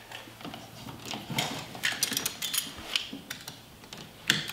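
Irregular light clicks, taps and rattles of hands handling wires and small tools at an electrical wall box, with a sharper click near the end.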